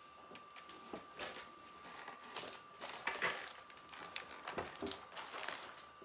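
Scattered light clicks and rustles of plastic toy parts and foil being handled, over a faint steady high tone.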